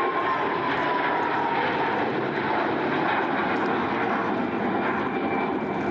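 Airbus Beluga cargo jet's twin turbofan engines during a flypast: steady loud jet noise, with an engine whine that slides slowly lower in pitch over the first couple of seconds as the aircraft passes.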